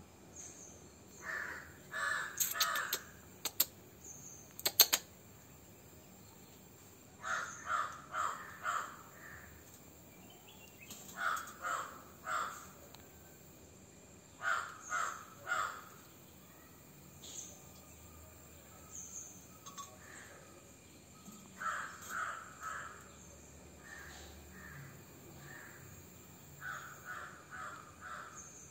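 A bird calling outdoors in runs of three or four short calls, a run every few seconds. A few sharp clicks come a few seconds in; the loudest of them, about five seconds in, is the loudest sound here.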